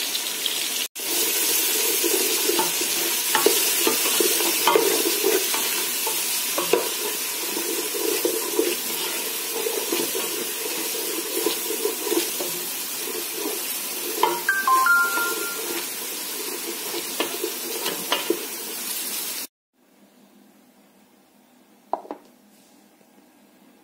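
Tomato masala with spice powders sizzling in oil in a metal pot while a wooden spatula stirs and scrapes through it. The sizzling cuts off abruptly near the end, leaving a quiet background with a single light knock.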